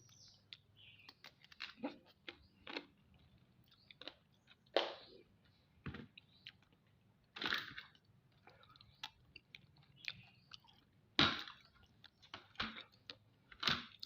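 A person eating mud crab: irregular crunching and cracking of crab shell with chewing between, a few louder cracks every two or three seconds.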